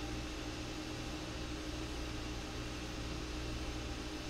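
Steady room tone: a low electrical-sounding hum with an even hiss, and nothing else happening.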